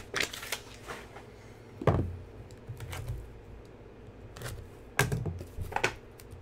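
Handling of a cardboard trading-card box on a table: scattered clicks, a loud thump about two seconds in, then a cluster of sharp clicks and scrapes as a box cutter slices the box's seal.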